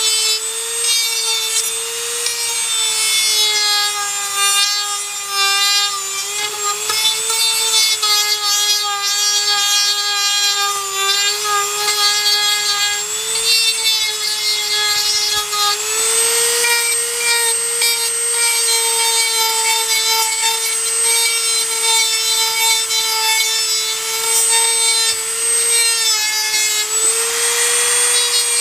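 Small high-speed power tool cutting or grinding dash trim back to make room for a double-DIN stereo. Its motor runs as a steady high whine whose pitch sags a little each time it bites into the material, then recovers.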